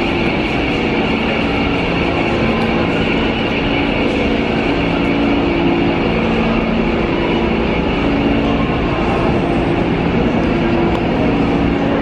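New York City subway train rumbling through an underground station: a loud, steady rumble with no breaks.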